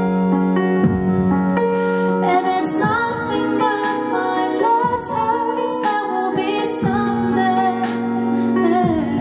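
A woman singing into a microphone over instrumental accompaniment, holding long notes with a wavering vibrato.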